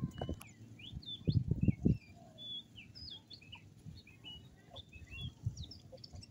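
Small birds chirping and twittering in quick, short calls throughout. A few louder low thumps come about a second and a half in.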